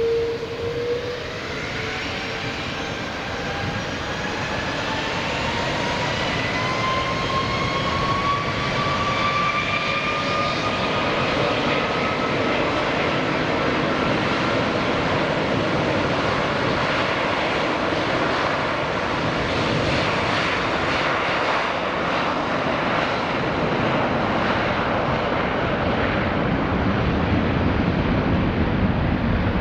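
Jet airliner's engines spooling up for takeoff: a whine of several tones rising in pitch over the first ten seconds or so, giving way to a loud, steady roar as the aircraft makes its takeoff run.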